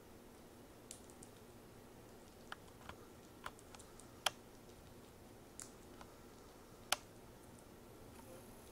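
Baby fox squirrels making faint, scattered sharp clicks and taps on a wooden tabletop, about a dozen at irregular intervals, two of them louder than the rest.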